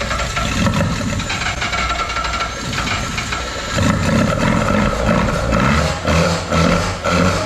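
Mazda 10A peripheral-port rotary engine running, smooth and quiet for a peripheral-port engine, with its low end building up about four seconds in.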